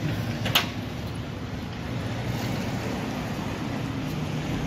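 Roadside traffic: a steady low hum of vehicle engines, with one short sharp click or tap about half a second in.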